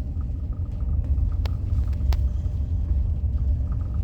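Car driving at low speed, a steady low road and engine rumble heard from inside the cabin, with two light clicks a second or two in.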